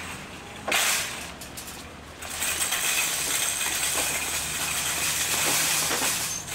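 A steady, loud hiss like rushing air, starting about two seconds in and stopping near the end, after a short burst of the same just under a second in.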